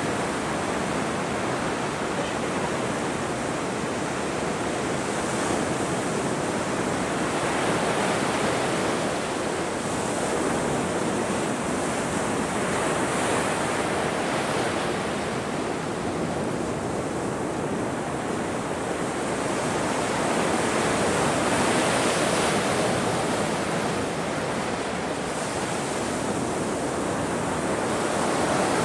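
Ocean surf: waves breaking and washing ashore in a continuous rush that swells and fades every few seconds.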